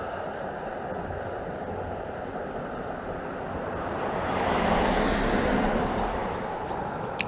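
A car driving over a road bridge: a steady rush of tyre and road noise that swells to a peak about halfway through and then fades. A single sharp click comes near the end.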